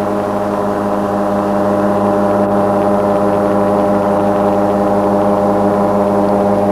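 Steady drone of the Tandem Airfoil wing-in-ground-effect craft's engine running at constant speed: one unchanging pitched hum with many overtones.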